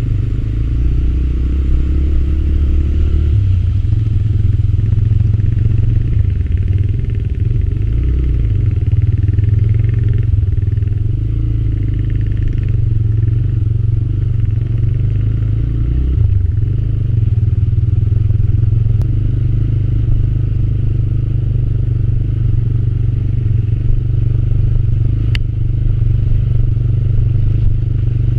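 TVS Raider 125's single-cylinder engine running steadily while the motorcycle is ridden, its low tone shifting a few times with throttle, with two brief clicks in the second half.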